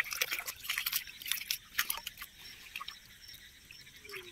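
Water splashing and dripping as a wet hand net is lifted and worked in shallow water: a quick run of small splashes and drips in the first two seconds or so, then quieter.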